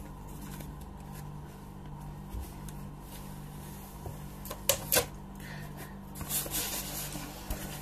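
Handling noise as a videocassette and a cardboard parcel box are moved about: two sharp clicks close together about five seconds in, over a steady low hum.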